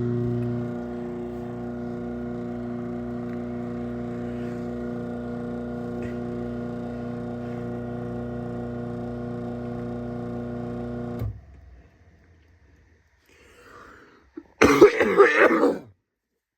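Craftsman half-horsepower chain-drive garage door opener running steadily as it closes the door, its motor hum stopping abruptly about eleven seconds in. A few seconds later comes a short, loud cough.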